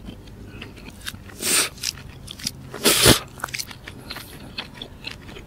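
Close-up mouth sounds of a man eating mussels: soft chewing and small wet clicks, with two louder noisy bursts about a second and a half and three seconds in.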